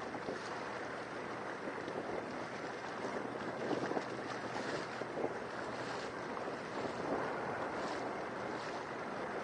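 Wind buffeting the microphone and water splashing against a small boat's hull, swelling and easing irregularly.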